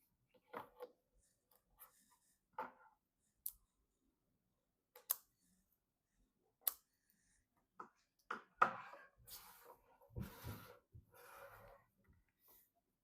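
Hands working on PC parts: scattered sharp clicks and taps, then a few seconds of scraping and rustling handling noise about two-thirds of the way through.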